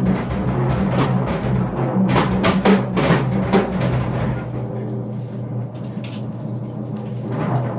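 Free-jazz drum kit playing with dense, irregular hits on drums and cymbals that thin out after about four seconds, over a held low note.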